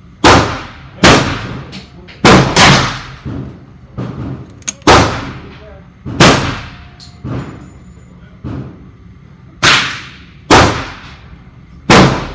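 Handgun shots echoing in an indoor shooting range: about nine loud shots at irregular intervals, some under a second apart, with fainter shots from other lanes in between.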